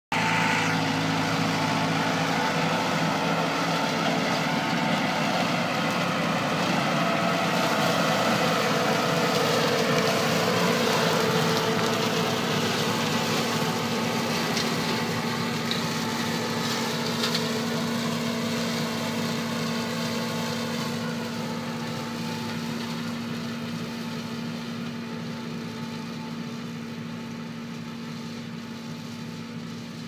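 John Deere compact tractor running steadily under load, driving a Vogel-Noot MasterCut TK 180 flail mulcher through tall grass. The sound grows fainter from about halfway through as the tractor moves away.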